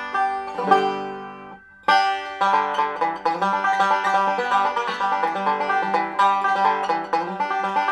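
Solo banjo being picked: a few ringing notes, a brief pause a little under two seconds in, then a fast, unbroken stream of picked notes.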